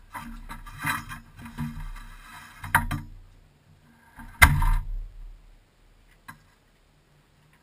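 Clattering and knocking inside a stripped rally car's cabin as the driver gets out of his seat and the car, with one loud, sharp thump about four and a half seconds in and a small click a little later.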